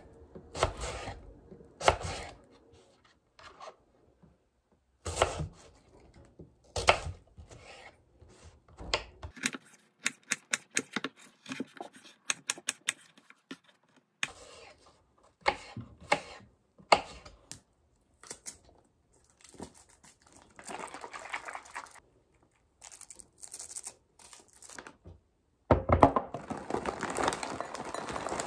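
Knife cutting an apple on a wooden cutting board: scattered knocks of the blade meeting the board, with a quick run of small chops in the middle as the apple is diced. Near the end, granola pours from a bag into a glass mug with a dense clatter.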